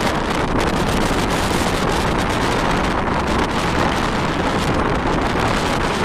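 Strong wind buffeting the microphone: a loud, steady rush and rumble of wind noise.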